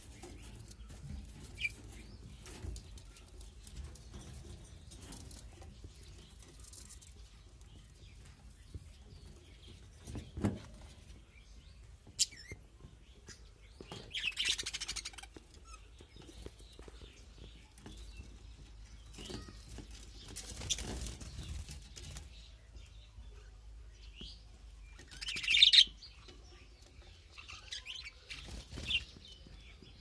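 A colony of budgerigars chirping in short scattered bursts, with occasional wing flaps. The loudest chirping comes about halfway through and again near the end.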